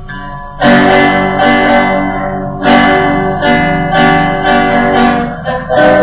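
Guitar music: strummed chords, each struck with a sharp attack and left to ring.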